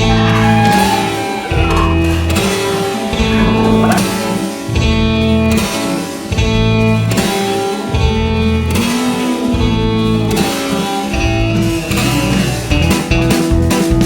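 Background music: guitar-led rock instrumental with a steady beat.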